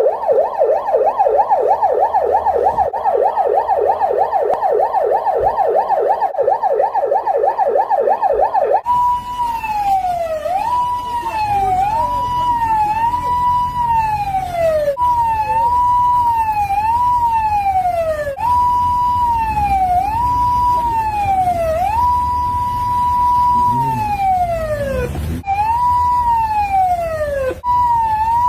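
South Korean police car siren, loud. For about nine seconds it runs as a fast warbling yelp. It then switches abruptly to a tone that holds high and slides down, repeating every second or two, with a vehicle's low rumble underneath.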